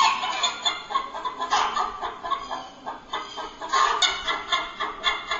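Domestic hen clucking and cackling: a rapid, irregular run of short clucks.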